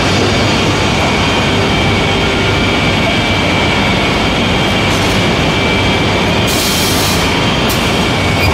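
Gypsum board PVC laminating machine running: steady mechanical noise from its roller conveyors and gear motors, with several steady high whines, and a hiss lasting about a second near the end.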